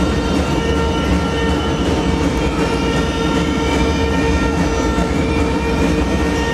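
Continuous loud arena crowd noise at a basketball game, with several long steady tones held over it from the stands.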